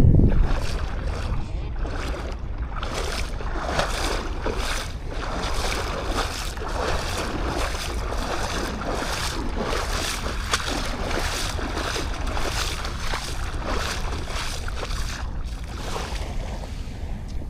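Sea surf washing on a sandy beach, with wind rumbling steadily on the microphone.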